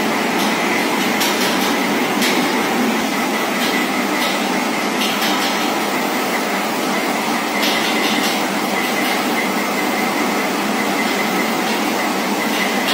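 Steady running noise of a train moving on rails, with a few sharp clacks.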